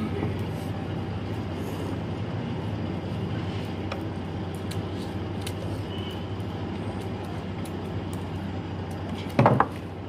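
A steady low mechanical hum and rumble, with a few faint clicks and a brief louder sound near the end.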